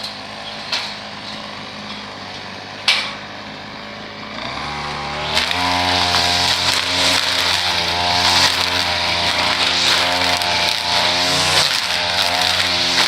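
A few sharp knocks, then a small gasoline engine of lawn equipment starts up about four seconds in and runs loudly and steadily at high speed.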